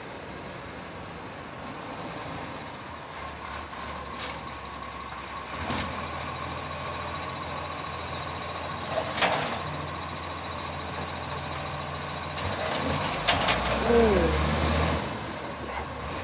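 Iveco side-loading recycling truck's diesel engine running steadily as it pulls up, with sharp knocks and clanks a few times as its automated side arm lifts and empties a wheelie bin, the loudest near the end.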